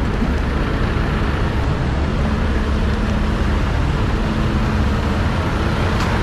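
Heavy diesel engine of a dump truck running steadily at a constant speed, a continuous low hum with no revving.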